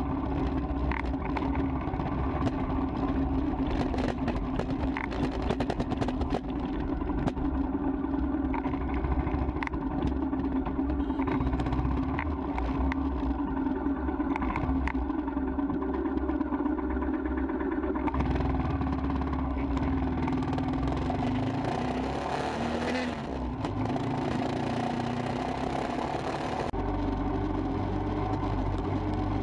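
Royal Enfield Himalayan's single-cylinder engine running steadily at low speed in traffic, with scattered rattling clicks. A rush of wind noise comes in over the later part and cuts off abruptly near the end.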